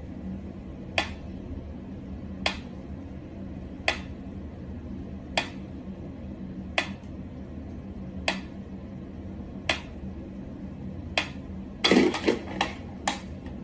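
Mechanical pyramid metronome ticking slowly and evenly, one sharp tick about every second and a half. Near the end a quick flurry of louder knocks and rattles breaks the beat.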